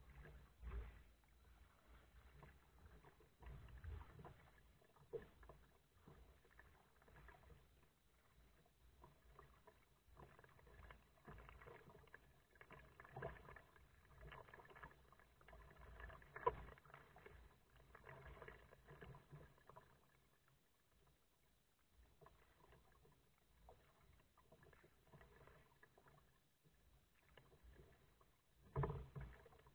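Faint kayak paddling: irregular paddle strokes swishing and splashing in the water, with a sharp knock about halfway through and louder strokes near the end.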